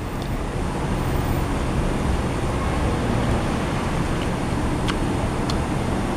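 Steady road-traffic noise from a busy highway close by, an even low rumble without breaks. A couple of faint light clicks sound about five seconds in.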